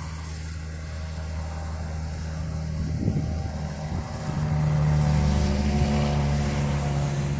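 A motor vehicle engine running steadily, getting louder about four seconds in.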